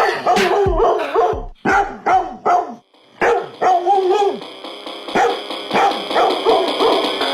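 Rapid run of short dog-like barks, about three a second, with a brief break near three seconds in, laid into a meme music track whose bass beat drops out here. A steady high tone comes in after the break.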